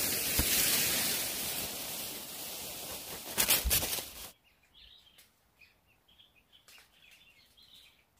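Loud, steady hissing noise with a burst of louder clicks near its end, cutting off abruptly about four seconds in; then faint birds chirping in quiet woodland.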